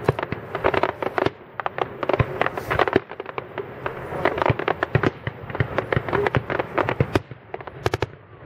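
Aerial firework shells bursting overhead in a rapid, uneven string of sharp bangs and cracks.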